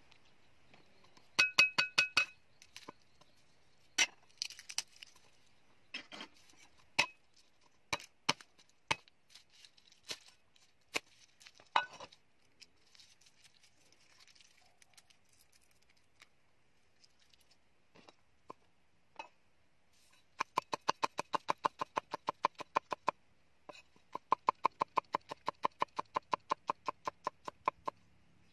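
Cleaver slicing garlic cloves on a round wooden chopping block: two runs of rapid, even knocks, about eight a second, with a short break between, in the second half. Before that, scattered clicks and knocks as the garlic bulb is broken into cloves and peeled on the board.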